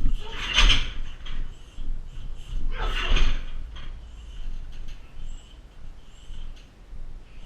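Two kicks striking a weighted car tyre target on a boxing stand, each a heavy thud with a short rattle after it, about two and a half seconds apart.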